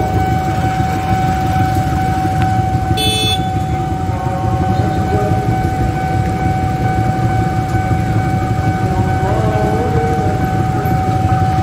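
Level-crossing warning alarm holding one steady high tone, over a low steady rumble of engines as a train approaches the crossing. A brief high-pitched blip about three seconds in.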